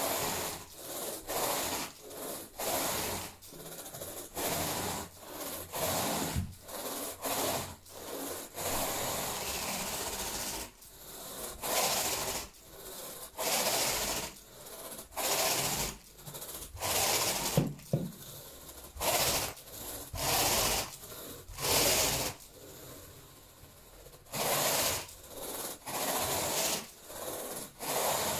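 Plastic carpet rake dragged back and forth through thick carpet pile, its tines scratching through the fibres in steady strokes about once a second, with a short pause about three-quarters of the way through.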